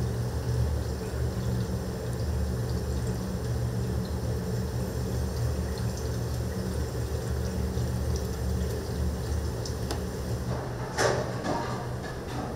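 Steady rumble of a restaurant kitchen's wok station, with the burner and exhaust hood running. A short, louder clatter comes about eleven seconds in.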